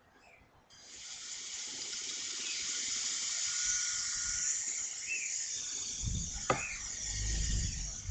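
Miniature remote-control helicopter's small electric motors and rotors spinning up under a second in and running with a steady high whirring hiss. A single sharp knock comes about six and a half seconds in, with low rumbling near the end.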